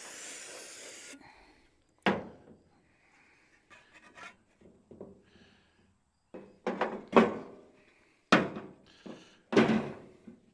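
A short hiss of aerosol cleaner spraying for about a second, then a series of sharp knocks and thuds: parts and tools being handled on a workbench while oily differential parts are cleaned.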